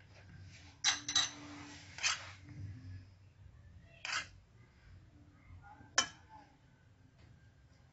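Kitchen handling noise while mashed potato is shaped by hand around minced kefta: a few sharp clicks and knocks, about five in all, the loudest about a second in and at about six seconds.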